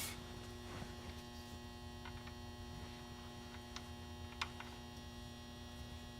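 Steady electrical mains-type hum, with a few faint, short clicks of a wrench working a fuel-line fitting scattered through it.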